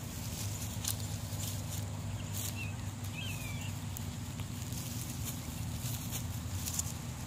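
Nine-banded armadillo rooting through lawn grass for bugs: short, irregular rustles and scratches as it noses and digs, over a steady low hum.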